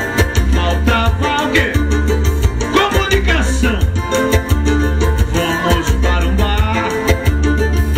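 Live Latin dance music from an electronic keyboard with a steady, pulsing bass beat, in an instrumental break between sung lines.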